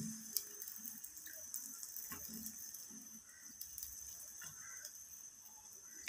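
Syrup boiling in a pot on a gas burner: faint bubbling and pattering over a steady hiss, with a few light clicks near the start as whole peeled apples are set into it.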